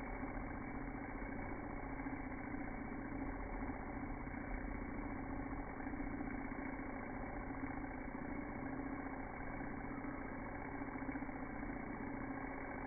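Cartridge tattoo machine running steadily while the needle shades ink into skin: an even, unbroken motor buzz that holds one pitch throughout.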